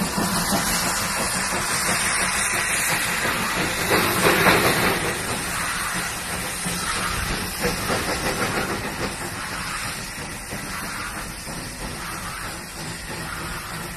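Steam locomotive hauling coaches, with a loud hiss of steam and exhaust that is loudest about four seconds in and eases off as the train draws away.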